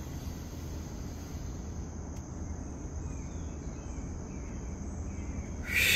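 Steady high chirring of insects over a low hum. Near the end, a sudden loud rush of breath blown out through pursed lips, the slow exhale of a counted yoga breath.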